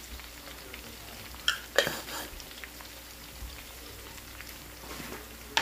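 Onion, garlic, chilli and galangal frying in oil in a pan, a steady sizzle while being stirred. A few sharp clicks or knocks come about a second and a half in and again near the end.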